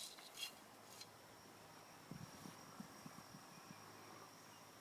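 Near silence: a faint steady high-pitched tone with a few soft ticks early on and a short run of quiet low taps in the middle.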